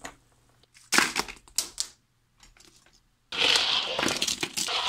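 Small plastic toy trains clattering against each other as a hand scoops a pile of them off a desk, then a longer dense rattling clatter from about three seconds in as they are dropped into a tub of others.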